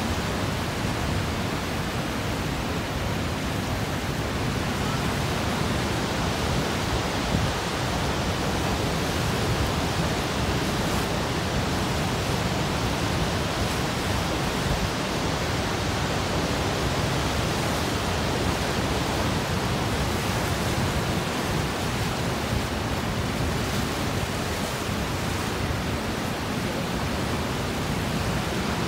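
Steady, even roar of Niagara's Horseshoe Falls, with the fast water of the river rushing over the brink.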